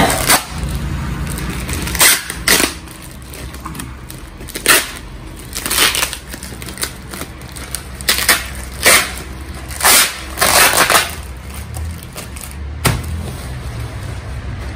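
Plastic courier mailer and packing tape being torn open and crumpled by hand: repeated sharp ripping and crinkling noises, a second or two apart, over a steady low hum.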